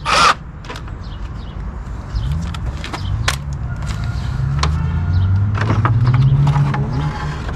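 Plastic radiator fan assembly being worked loose and pulled out of the engine bay: scattered clicks and knocks, and a low wavering rubbing hum that builds from about two seconds in.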